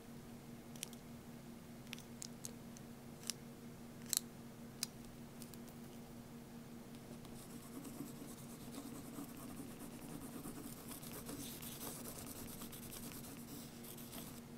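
A pen-style eraser rubbing on notebook paper, a soft scratchy scrubbing through the second half. Before it come a handful of light clicks and taps, all over a steady low hum.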